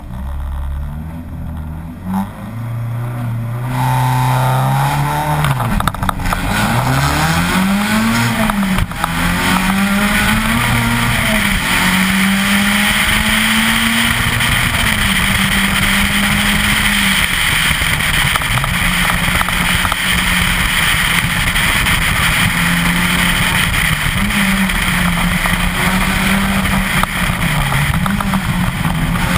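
Citroën Saxo VTS 16V rally car's 1.6-litre four-cylinder engine, first held on revs while stationary, then launching hard about four seconds in and climbing through the gears with rising and falling sweeps. It then runs at high revs, dipping briefly now and then.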